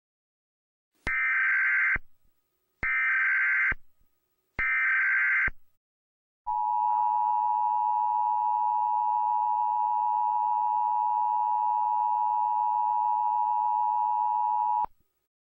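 Emergency Alert System alert: three one-second bursts of the screeching digital SAME data header that encodes the alert, then the steady two-tone EAS attention signal held for about eight seconds before it cuts off suddenly. It marks the start of an emergency broadcast.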